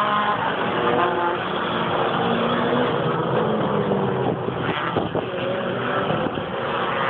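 Several touring-car racing engines running together as a pack of race cars passes along the circuit, a steady blend of engine notes with pitches shifting slightly as they accelerate and lift.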